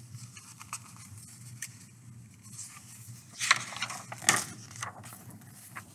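Paper pages of a large picture book being turned by hand: soft rustling with a few small ticks, then two louder swishes of the page about three and a half and four and a half seconds in, over a low steady hum.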